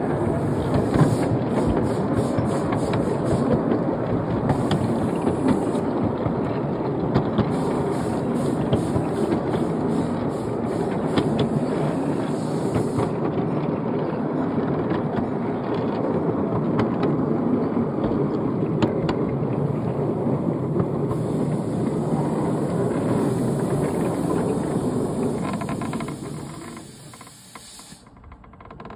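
Seven-carriage miniature railway train running along the track: a steady rumble of wheels on the rails with scattered sharp clicks, fading away near the end as the train slows to a stop.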